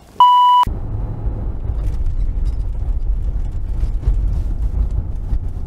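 A loud, steady, high beep lasting about half a second, a censor bleep, cut off abruptly; then the steady low rumble of the 2016 Mercedes-AMG G63 driving, heard inside its cabin.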